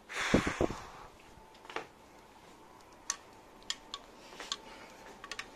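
A short rustle with two or three dull thumps, then scattered sharp clicks about once a second over a faint steady tone.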